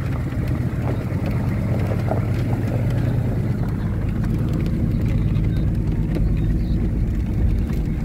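GMC truck's 6.5-litre turbo-diesel V8 running at a steady pace as the truck drives along a dirt track, heard inside the cab as a low, even drone.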